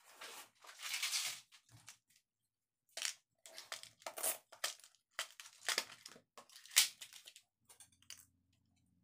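Packaging being crumpled and crinkled by hand in a string of irregular rustling bursts, loudest about a second in and again from about three to seven seconds.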